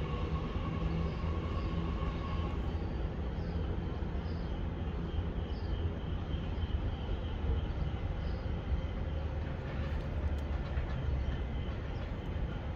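Metra Electric bilevel electric commuter train rolling past, a steady low rumble of wheels on rails.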